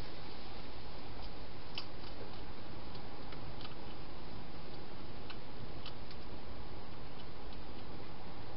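Hedgehog eating inside a plastic feeding box: faint, irregular crunching clicks as it chews, over a steady hiss.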